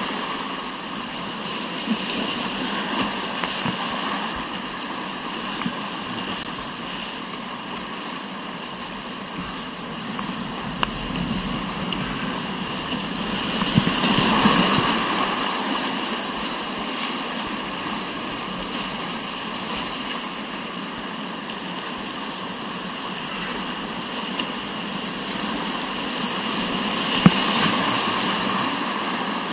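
Rushing whitewater of a mountain river rapid, a steady rushing noise that swells about halfway through.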